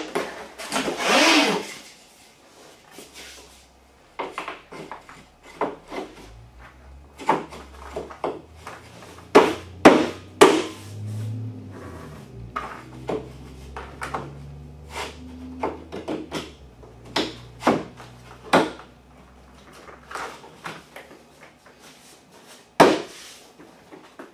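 Drop-and-lock laminate flooring planks being fitted by hand: a scraping slide about a second in as a plank is drawn out, then scattered knocks and clicks as planks are slid, lifted and dropped into their locking joints, with a sharper knock near the end.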